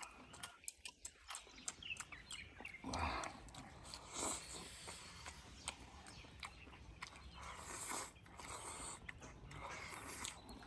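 People eating a rice meal: chewing, with light clicks of chopsticks against bowls.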